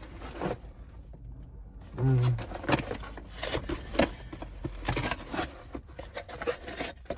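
A cardboard shipping box being opened and handled, with scattered crackles, clicks and rustles of cardboard and packing. About two seconds in there is a brief, louder low pitched sound.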